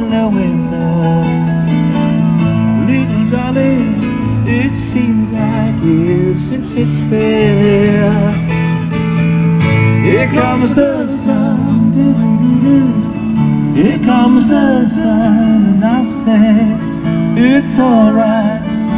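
A song with strummed acoustic guitar and a singing voice.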